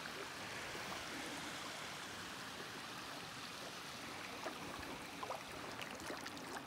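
Small stream trickling as a faint, steady wash of water, with a few faint ticks in the second half.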